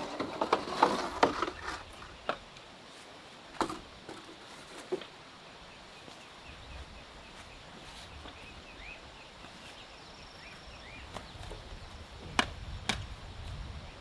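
Chopping and knocking strikes from a hand tool at work: a quick flurry in the first two seconds, then single knocks a few seconds apart, with a last pair near the end.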